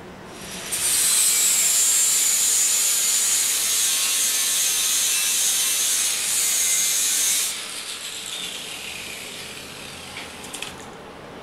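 Handheld electric angle grinder starting up and grinding steel on a workbench, a harsh high whine for about seven seconds, then coming off the metal and winding down.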